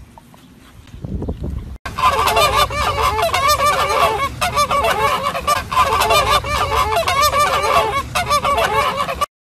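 A flock of flamingos honking, many goose-like calls overlapping thickly. The calls start suddenly about two seconds in and cut off abruptly just before the end.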